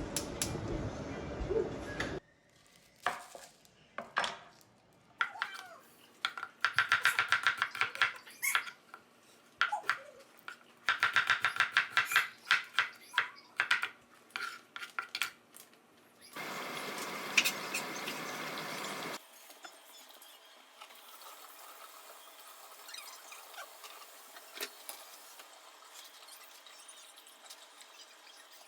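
Kitchen utensils clinking and scraping against pots and dishes in quick runs of strokes, with a short stretch of steady hiss a little past the middle.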